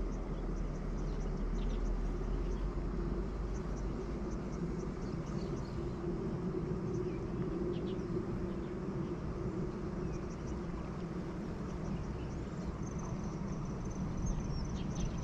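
Steady low rush of flowing river water with insects chirping over it in short high calls. A thin, high, steady insect trill joins near the end.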